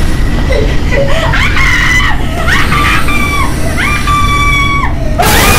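A woman screaming in terror, four long screams that each rise, hold and drop, over a steady low rumble. About five seconds in, a loud hissing burst cuts in over everything.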